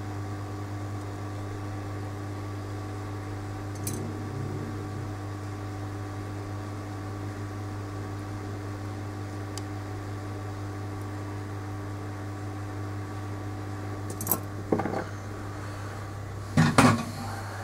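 Steady electrical hum with a few sharp clicks and knocks of small hard objects being handled, the loudest clatter coming about a second before the end.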